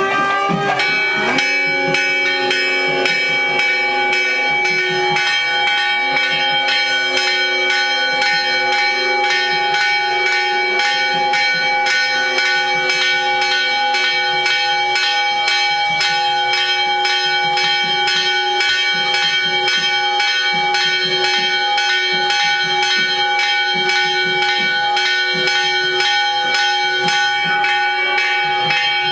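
Temple bells rung continuously and fast, about two to three strokes a second, their tones ringing on over one another. A lower held note sounds in stretches during the first half.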